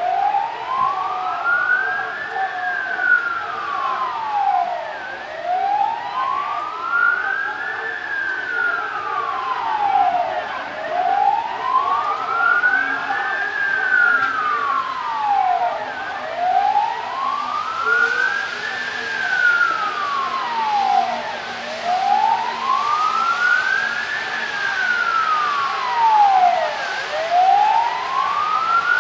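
A siren wailing slowly, its pitch rising and falling over and over, each full cycle taking about five and a half seconds.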